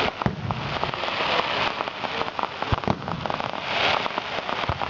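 Fireworks bursting: a dense crackling hiss of crackle shells, with a few sharper bangs through it.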